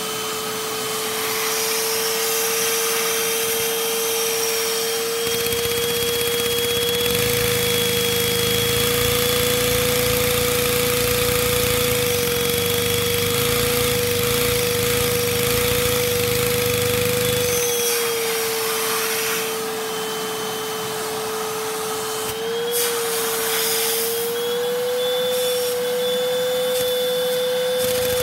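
Vacuum cleaner motor running with a steady high whine, its hose sucking on a Lego vacuum piston engine. From about five seconds in until about eighteen seconds a low rapid plastic rattle joins it as the Lego engine's pistons, valves and gears run on the suction, and a single click comes near the end.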